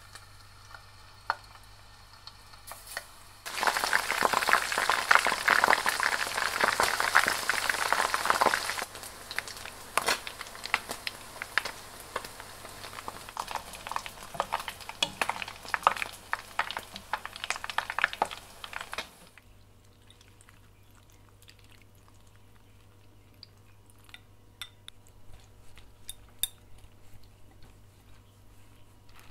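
Flour-dusted wakasagi smelt frying in oil at 180 °C in a frying pan. A loud sizzle starts about three and a half seconds in as the fish go into the oil, then settles around nine seconds in to a quieter sizzle with frequent pops and chopstick taps, which stops at about nineteen seconds. After that there are only faint light taps.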